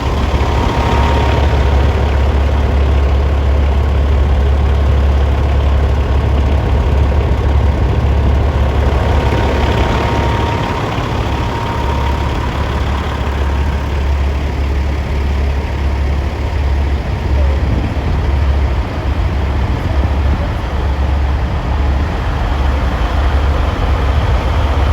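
Heavy diesel truck engine idling with a steady low rumble.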